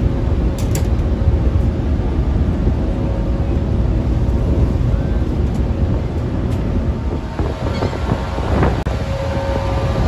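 Steady low rumble of a car ferry under way, with wind buffeting the microphone.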